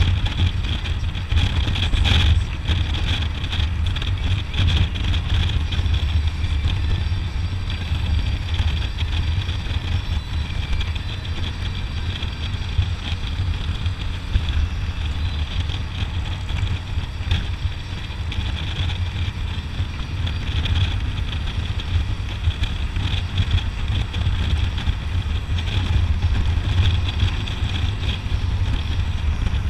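Harley-Davidson touring motorcycle's V-twin engine running steadily at road speed, mixed with wind rushing over the camera microphone.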